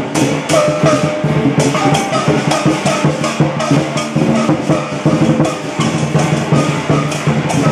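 Loud music with drums and percussion: a quick, steady beat of strikes under a sliding melody line.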